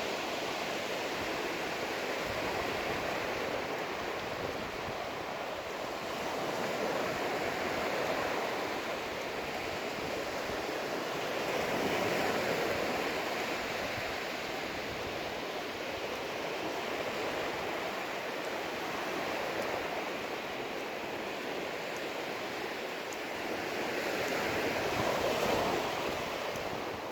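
Surf washing onto a sandy beach: a steady rushing hiss that swells as waves break, loudest about twelve seconds in and again near the end.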